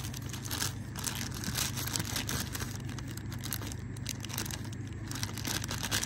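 Thin plastic produce bag crinkling and crackling as a hand handles it and the turnips inside, over a steady low hum.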